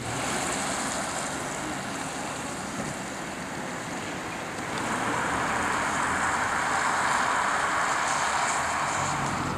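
Steady hiss of road traffic on a wet town street, growing louder about five seconds in.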